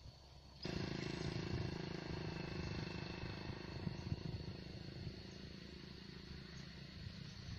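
A steady low hum, engine-like, with wind rumbling on the microphone. It starts abruptly about half a second in and slowly fades.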